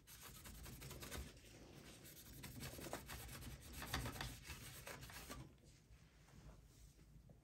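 Faint scratchy rubbing of a paper towel wetted with 91% isopropyl alcohol wiped back and forth over a desktop CPU's metal heat spreader, cleaning it; the rubbing stops about five seconds in.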